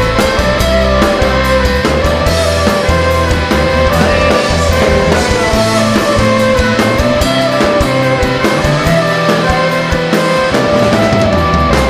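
Live rock band playing an instrumental passage: fiddle, electric and acoustic guitars, bass and drum kit together, with no singing.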